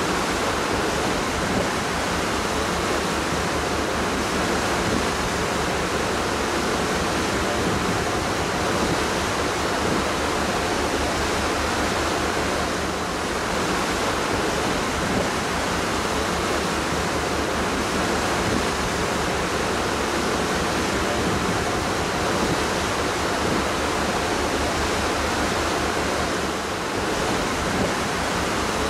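Steady rushing noise of wind and sea aboard a ferry under way, unbroken throughout.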